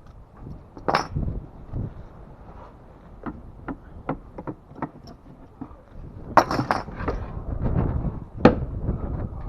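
A series of knocks and clinks from hard objects being handled or struck. There is a loud knock about a second in, a run of sharper taps in the middle, a cluster of knocks about six to seven seconds in, and a sharp knock near the end.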